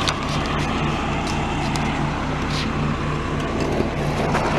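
Car engine running with a steady low hum and road noise.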